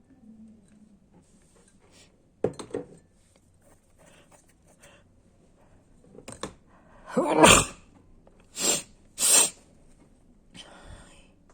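A person sneezing repeatedly: a short sharp sneeze about two and a half seconds in, the loudest one near the middle, then two more in quick succession.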